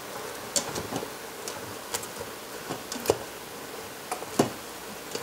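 A spatula stirring cabbage and ground beef in a stainless steel Instant Pot inner pot, with irregular light clicks and taps as it knocks against the metal pot.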